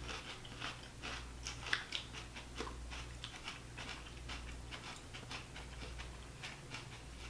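Two people chewing mouthfuls of raw Anaheim pepper: faint, irregular crunchy clicks and wet mouth sounds over a low, steady hum.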